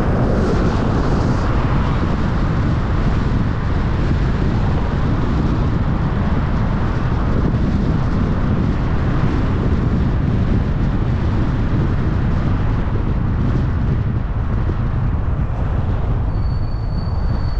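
Steady road and wind noise of a moving car, deep and even, with no clear engine note. A brief thin high whistle sounds near the end.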